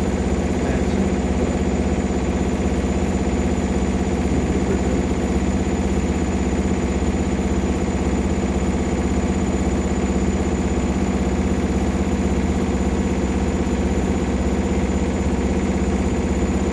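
Hotpoint Ultima washing machine spinning on its universal (brushed) motor: a loud, steady drone with a fast, even pulse as the machine shakes hard on spin.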